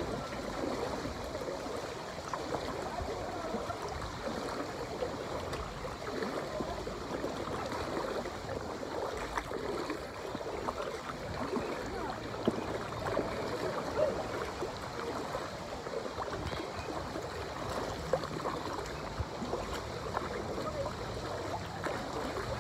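Lazy-river water lapping and sloshing steadily around floating inflatable tubes, with a few short louder splashes or knocks.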